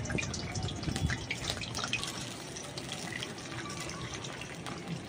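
Large potato chunks frying in hot mustard oil in a kadai: a steady sizzle dotted with crackles.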